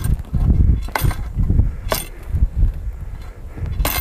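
Ice chisel striking down into a thinly refrozen fishing hole, three sharp crunching blows about a second apart, breaking the thin ice into slush and water, over a low rumble.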